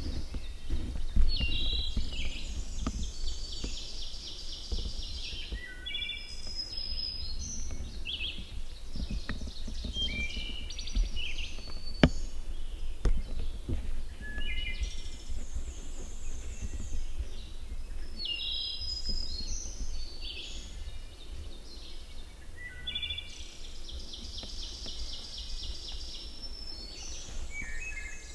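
Songbirds singing repeated phrases every few seconds in the woods, over a steady low rumble.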